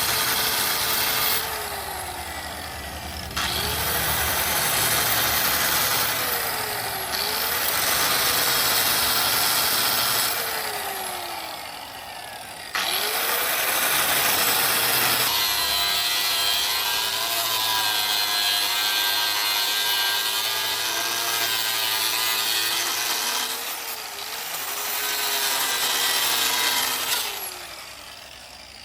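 Electric power tool grinding or cutting under load, a harsh hiss in several long passes. Its motor pitch sags each time the tool is pressed in and climbs back when it eases off. The sound fades away near the end.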